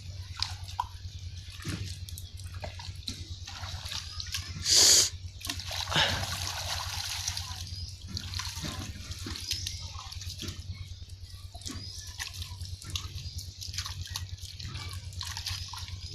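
Shallow water splashing and trickling in small irregular sloshes as hands work through it, with one brief, much louder burst of noise about five seconds in, over a steady low hum.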